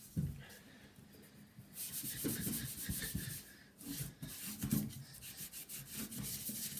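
Scrubbing the metal of a desktop computer case during a baking-soda cleaning: a gritty rubbing made of quick repeated strokes. It is faint at first and grows louder and steady about two seconds in.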